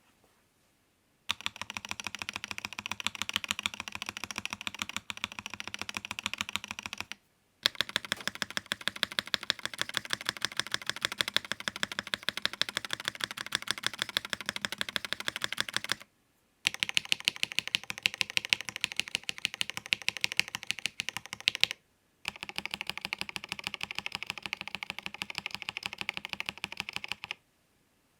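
Fast, continuous typing on a YUNZII Keynovo IF98 Pro mechanical keyboard, the keystrokes clacking rapidly. It comes in four runs broken by brief pauses.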